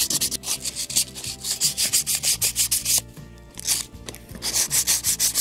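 600-grit sandpaper on a flat stick rubbed in quick back-and-forth strokes over the wooden top of a cuckoo clock bellows, smoothing off leftover paper and glue. The strokes stop for about a second roughly three seconds in, then start again.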